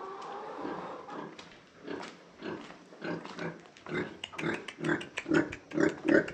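A sow grunting: a run of short, low grunts, about two a second, growing louder toward the end. This is the rhythmic grunting of a sow nursing her newborn piglets.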